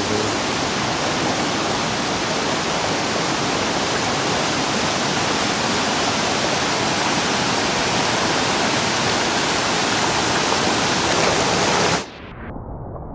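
Manthokha waterfall: a dense, steady noise of falling and rushing water. About twelve seconds in it cuts off suddenly to a much quieter low rumble.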